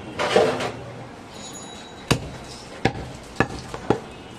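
Butcher's knife and goat meat knocking on a wooden log chopping block: a brief noisy scuffle at the start, then four sharp knocks about half a second apart in the second half.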